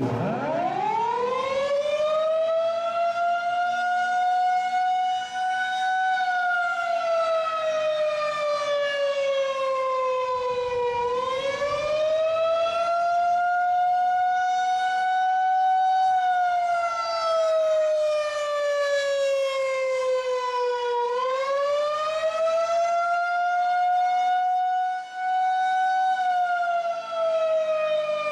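Federal Signal 2001-130 outdoor warning siren sounding the Attack signal, the tornado warning: it winds up from a standstill at the start, then wails, slowly rising and falling in pitch about every ten seconds.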